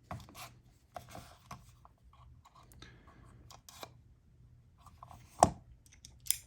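Scattered light metal clicks and scrapes of a small driver bit being tried in the pocket-clip and pivot screws of a folding knife, with one sharp click about five and a half seconds in.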